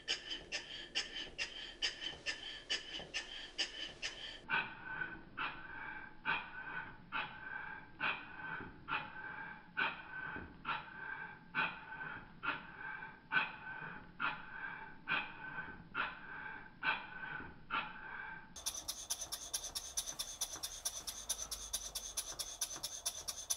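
Perseus horizontal model steam engine running on compressed air, its exhaust puffing in a steady rhythm of about two puffs a second, slowed down and duller in pitch. Near the end the puffs quicken to about four or five a second and sound brighter.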